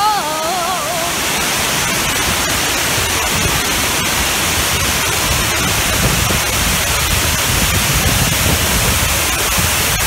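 A large waterfall pouring across the mouth of a tunnel, heard from inside the tunnel: a steady, really loud rush of falling water that fills the sound like static.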